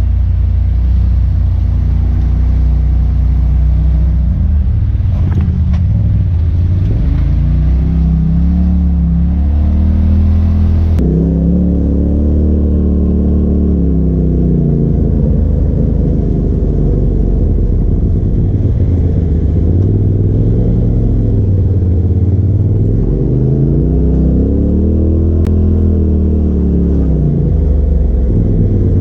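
Side-by-side UTV engine heard from onboard, its pitch rising and falling as the throttle is worked on and off along a rough dirt trail. About eleven seconds in the sound changes abruptly to a second machine's onboard engine, which rises and falls the same way.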